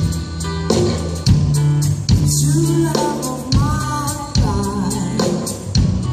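Live band playing a gospel-pop song: a woman sings into a microphone over drum kit, keyboard and accordion, with drum hits recurring every second or so.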